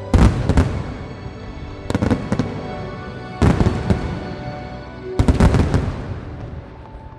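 Fireworks going off in four volleys of bangs and crackles, about one and a half to two seconds apart, each dying away before the next, with music playing underneath.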